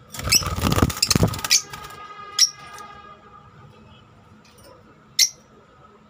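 Lovebird flapping its wings close to the microphone in a loud fluttering burst about a second long, then two short, sharp high squeaks a few seconds apart.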